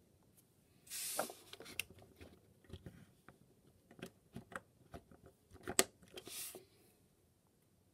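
Plastic parts of a Transformers Siege Ultra Magnus action figure clicking, snapping and scraping as it is transformed by hand, with a short scrape about a second in, another just after six seconds, and a sharp click just before six seconds.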